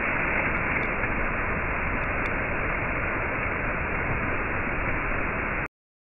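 Waterfall pouring over rock, a steady rushing of falling water that cuts off suddenly near the end.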